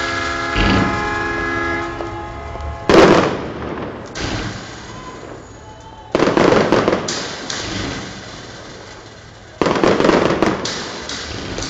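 Fireworks shells bursting overhead: four sudden loud booms about 3, 4, 6 and 9.5 seconds in, the first the loudest, each dying away over a second or two. A steady horn note sounds at the start and cuts off after about two seconds.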